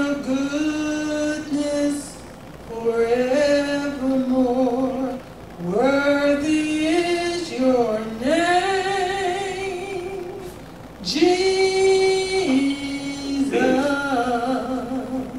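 A woman singing a slow song solo, in phrases of long held notes with short pauses for breath between them.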